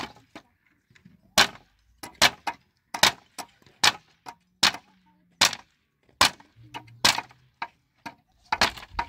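A hand tool striking wooden pallet slats in a string of sharp, separate wooden knocks, roughly one every second.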